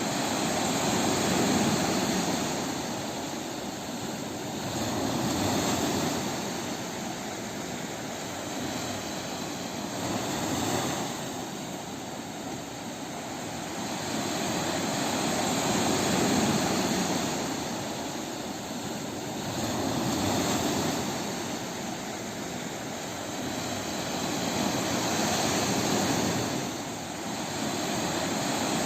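Ocean waves breaking on a beach: a continuous rush of surf that swells and ebbs about every four to five seconds.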